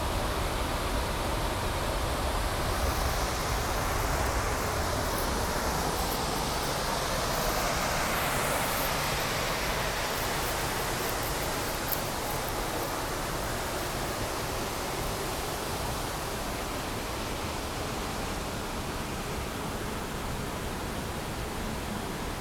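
Waterfall running: a steady, even hiss of falling water with slow swells in its upper range, and one faint click about twelve seconds in.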